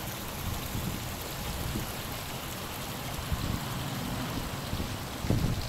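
Steady hiss of muddy floodwater running over the ground, with irregular low rumbles on the microphone, the loudest about five seconds in.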